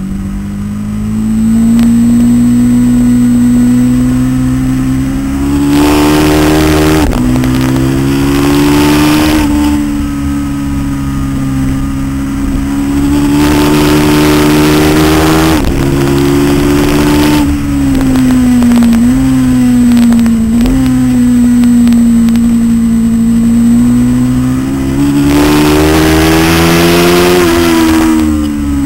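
Aprilia RSV-R's 60-degree V-twin engine at racing speed, climbing in pitch under hard acceleration and dropping sharply at each upshift, with two quick blips while shifting down about two-thirds of the way through. Wind rush over the helmet-mounted camera swells each time the bike accelerates.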